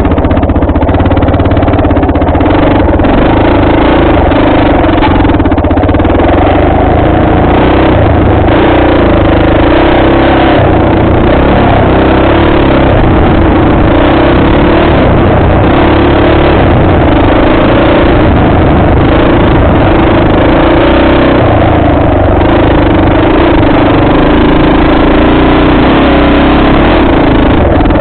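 Dirt bike engine running loud and steady while riding a trail, its pitch rising and falling a little with the throttle.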